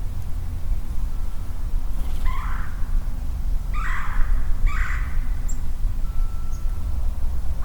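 Three short, harsh animal calls about a second apart, over a steady low rumble, with a couple of faint high chirps later on.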